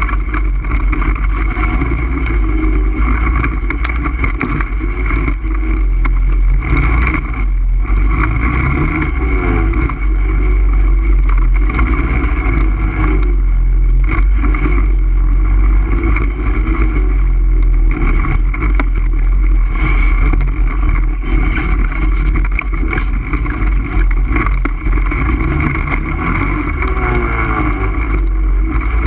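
ATV engine running continuously while riding, its pitch rising and falling with the throttle, with heavy wind rumble on the microphone.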